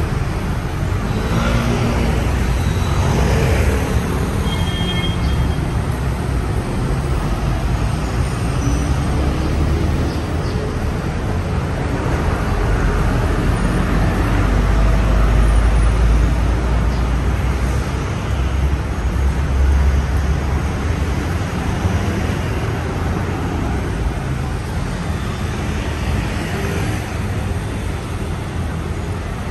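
Road traffic on a city street: cars and buses passing with a steady low rumble that swells twice as heavier vehicles go by around the middle. There is a brief high-pitched tone about five seconds in.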